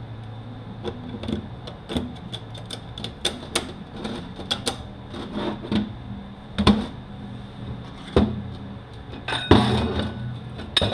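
Metal parts of a Mercedes 722.9 automatic transmission clicking, clinking and knocking as it is taken apart by hand, with several louder knocks in the second half and a short clatter near the end, over a steady low hum.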